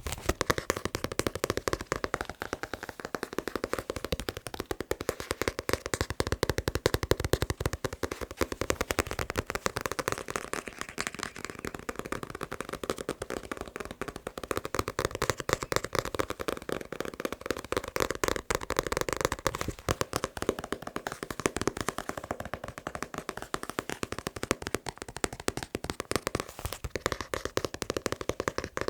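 Fingers tapping fast on a manga book: a dense, unbroken stream of quick taps that goes on without a pause.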